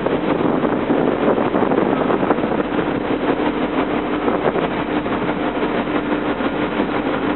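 Steady mechanical noise of heavy machinery with a faint constant hum held through it.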